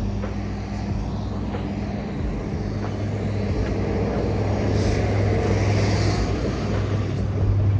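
City street traffic: a steady low engine hum from nearby vehicles under a wash of street noise, growing louder in the second half.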